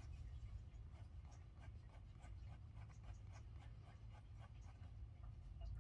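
Faint scratching of a Derwent Drawing Pencil on drawing paper: quick, short sketching strokes, a few each second, over a low steady hum.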